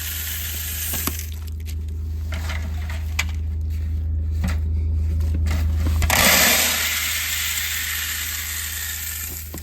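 Livestock feed being scooped and poured into a bucket: scattered rattles and clinks, then a loud rush of pouring about six seconds in, over the steady low hum of an idling engine.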